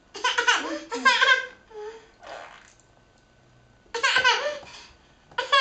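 Young child laughing in bursts: a long fit of giggles over the first second and a half, a couple of short trailing laughs, then two more bursts of laughter near the end.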